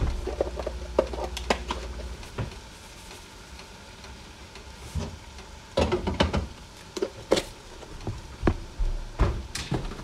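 Stovetop cooking: a utensil knocking and clinking against a pot a few times, loudest about six to seven seconds in and near the end, over a faint steady sizzle.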